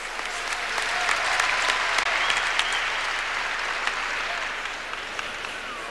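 Crowd applauding, swelling about a second in and easing off toward the end.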